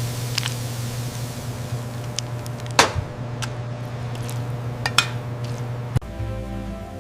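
Scattered light clinks, like glass or metal tapping, over a steady low hum. About six seconds in the sound cuts off abruptly and soft music begins.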